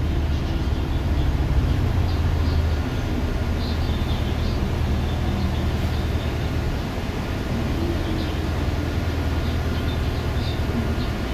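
Interior sound of a LOTES city bus under way: the engine's low drone with road noise and faint scattered rattles. The engine drone is strongest for the first few seconds, then eases.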